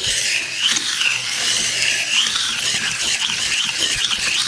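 Steel kitchen knife blade being stroked back and forth across a wet whetstone: a steady, continuous grinding scrape.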